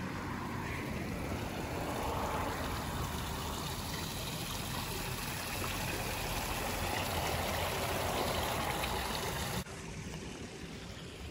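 Running water flowing steadily. Near the end it drops suddenly to a quieter hiss.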